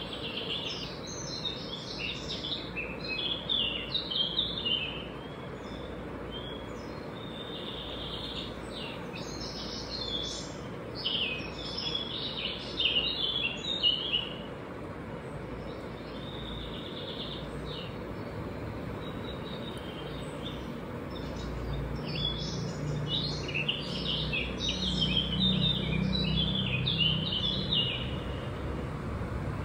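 Birds singing in three bouts of quick, high chirps over a steady background noise, with a low rumble rising in the last third.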